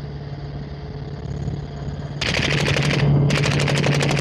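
A steady helicopter drone, then about two seconds in two rapid bursts of automatic gunfire fired from the helicopter at ground targets, with a short pause between them.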